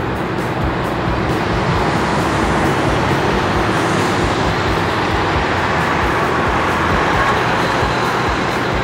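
Jet airliner engine noise at an airport: a steady rushing noise that swells slightly through the middle.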